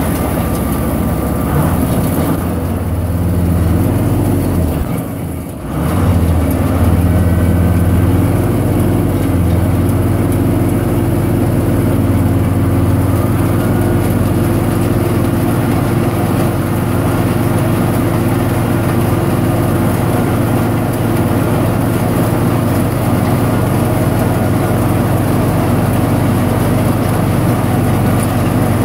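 Tractor engine running steadily under load, driving a Gehl 400 pull-type forage harvester that is chopping standing corn. The engine note dips briefly about five seconds in, then comes back steady.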